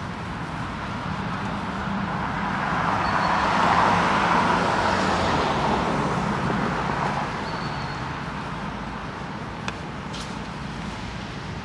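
A vehicle passing on the street alongside, growing louder to a peak about four seconds in and fading away over the next few seconds, over steady city traffic noise. A single short click near the end.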